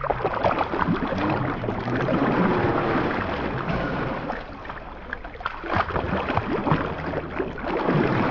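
River water splashing and sloshing around people bathing in it: a steady rush with many small splashes throughout.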